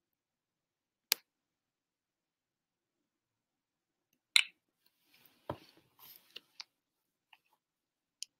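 Computer mouse clicking while blocks are picked and dropped in a block-coding editor: a sharp click about a second in, a louder one about four and a half seconds in, a scatter of fainter ticks just after, and one more click near the end.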